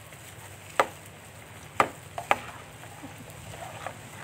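Banana fritters deep-frying in a wok of hot oil, a steady sizzling hiss, broken by several sharp clicks: one about a second in, another near two seconds, then a quick pair just after.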